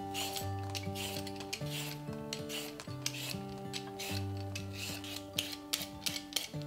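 Y-shaped vegetable peeler scraping skin off a raw russet potato in quick repeated strokes, about two a second, over soft background music.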